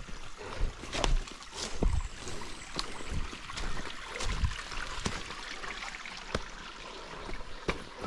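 A thin trickle of water running over rocks, a weak flow for the dry season, with scattered clicks and a few low thumps of footsteps and knocks on stone.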